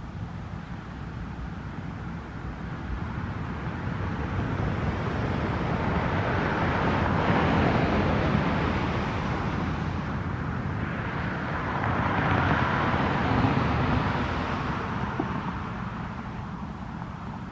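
Road traffic: two vehicles go past one after the other, each rising and fading over a few seconds.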